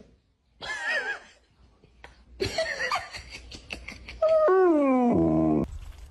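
A pet animal crying out three times, the last call longer, falling in pitch and then holding steady.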